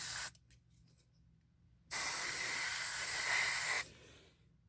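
Aerosol smoke-detector test spray hissing in two bursts, a short one ending just after the start and a steady spray of about two seconds from about two seconds in, aimed into a smoke detector to set off its alarm.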